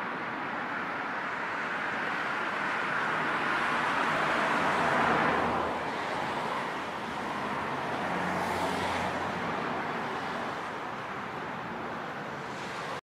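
City road traffic: a steady wash of car and tyre noise, swelling as a vehicle passes about five seconds in, then cutting off suddenly near the end.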